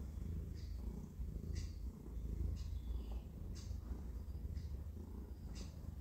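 Domestic cat purring steadily while kneading a soft bed, a continuous low rumble. Over it, short high chirps of a bird come about once a second.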